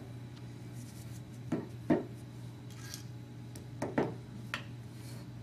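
Lever lockset parts being handled: a few sharp clicks and knocks of hardware, a pair about a second and a half in and another pair about four seconds in, as the lever is worked off its square spindle. A steady low hum runs underneath.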